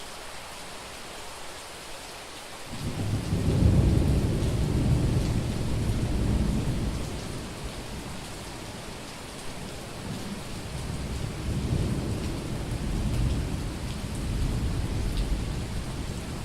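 Steady heavy rain with rolling thunder. A deep rumble breaks in about three seconds in, rolls for several seconds and eases off, then swells again more softly in the second half.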